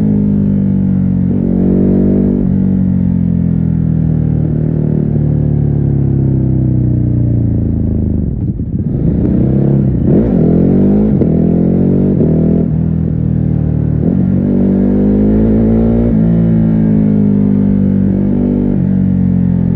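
Ducati Hypermotard 950's V-twin engine under way, heard muffled through a backpack. The engine note sinks slowly, dips briefly about eight seconds in, then rises in quick sweeps that each drop back at a gear change, and settles into a steadier pull with a few smaller shifts.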